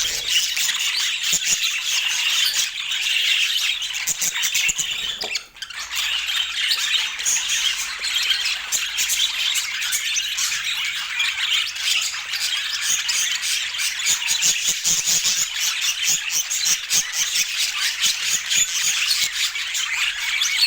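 Budgerigars chattering continuously in a dense, high-pitched stream of calls, with a brief break about five seconds in.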